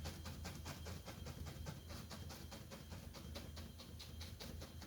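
Bristle brush dabbing acrylic paint onto canvas in quick, even strokes, about four or five a second, over a steady low hum.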